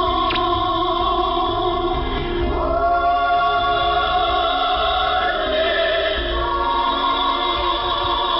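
A choir singing, heard over a shortwave radio broadcast, the sound thin with the treble cut off.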